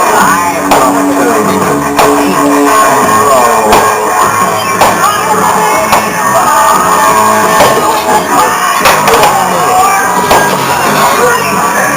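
Loud rock music with guitar and singing.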